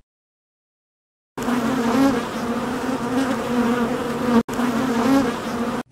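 Honeybees buzzing at a hive as a steady, many-winged hum that starts about a second and a half in. It breaks off for an instant about three seconds later, then carries on.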